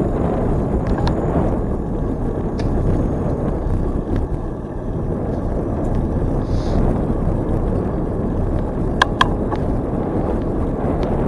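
Steady rush of wind on the microphone and tyre noise from a bicycle riding along a trail, with two sharp clicks about nine seconds in.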